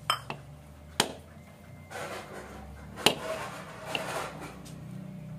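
Husked coconut being struck against the edge of a stone doorstep to crack it open: a few sharp knocks a second or two apart, with cloth rustling between them.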